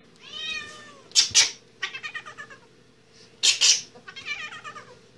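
A cat yowling and meowing in three drawn-out, wavering calls while it is handled, with two pairs of short, sharp, loud sounds between the calls.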